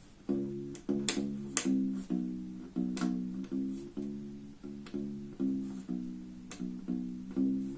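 Aklot 30-inch fretless bass ukulele played acoustically: a run of low plucked notes, two or three a second, each with a sharp click of finger on string. The instrument is not yet tuned.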